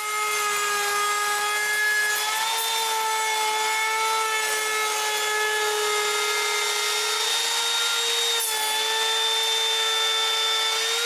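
High-speed electric power tool cutting wood, trimming the tongue off a wooden floor plank: a steady motor whine with small shifts in pitch as the load on the cutter changes.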